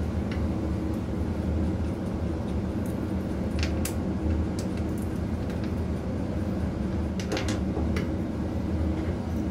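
Steady low drone of running machinery, with a few light metallic clicks from hand tools on the alternator's adjusting bracket about four seconds in and again near the end.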